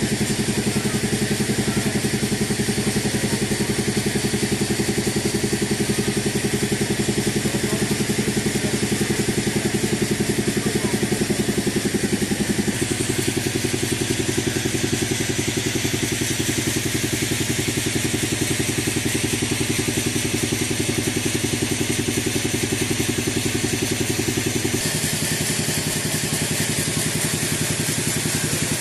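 An engine running steadily at a constant speed, with a low, pitched drone. Its note changes abruptly twice, about 13 seconds in and again about 25 seconds in.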